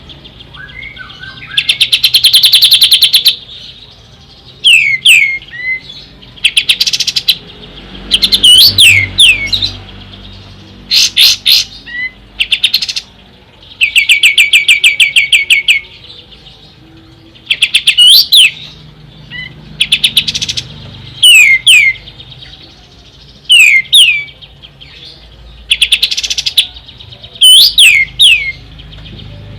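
Pied triller (kapas tembak) singing loudly: fast, even chattering trills alternate with short downward-slurred whistles, a phrase every second or two.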